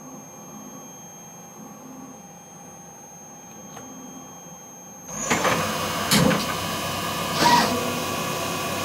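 Emco E25 TCM CNC lathe standing with only a faint steady machine hum and thin electronic whine, then about five seconds in the spindle starts up and runs with a much louder steady machine sound, with two brief louder swells a second or so apart.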